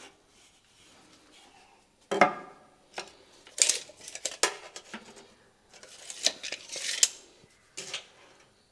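Clinks, knocks and scrapes of tools on a polished granite countertop slab as it is levelled on its frame: a sharp knock about two seconds in, a run of clinks and scraping through the middle, and one more short clink near the end.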